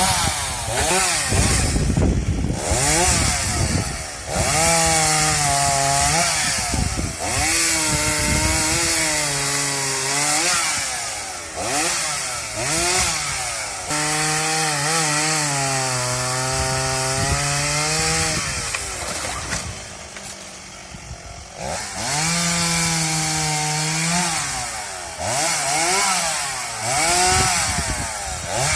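Chainsaw revving up and down while cutting wood, held at high revs in four stretches of a few seconds each, with the pitch swooping up and down between them.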